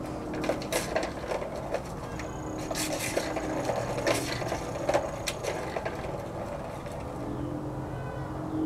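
A kitten pawing and scratching at a plastic ring-track scratcher toy: irregular clicks, scrapes and clatters, busiest in the first five seconds or so, then quieter.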